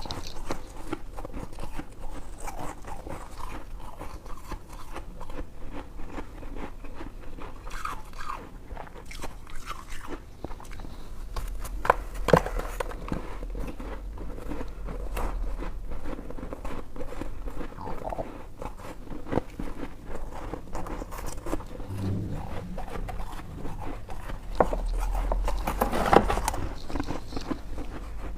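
Close-miked chewing and biting of white freezer-frost ice: continuous crisp crackling crunches, with a few louder, sharper crunches about twelve seconds in and again near the end.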